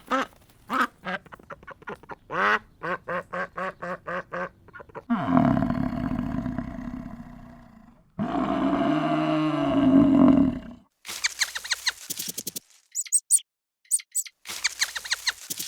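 Duck quacking in a rapid series of short quacks for about five seconds, followed by two long, low drawn-out calls from a large animal and then clusters of short, sharp, high-pitched calls.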